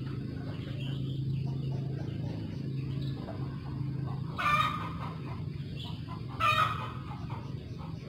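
A chicken calling twice, two short, loud squawks about two seconds apart, over a steady low hum.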